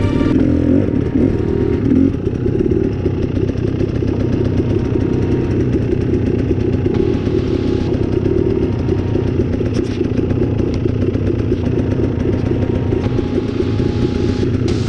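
Two-stroke 300cc enduro dirt bike engines running steadily at low revs.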